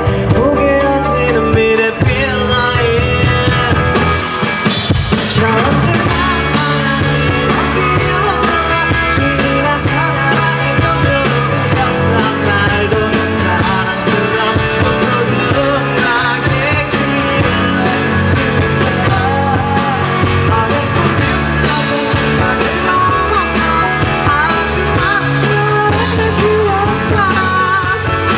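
Live pop-rock band playing a song with a male lead vocal, drums and guitars. The full band, with drums, comes in about two seconds in.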